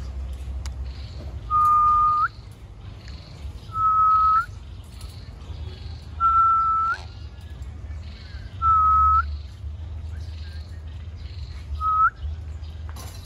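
Young sun conure giving a whistled call five times, each a steady clear note that ends in a quick upward flick, roughly every two and a half seconds.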